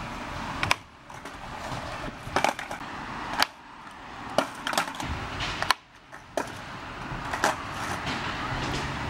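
Skateboard wheels rolling on rough asphalt, broken by about eight sharp clacks of the board's deck and tail striking the ground during flatground trick attempts. The rolling stops briefly a few times when the board comes to rest or is picked up.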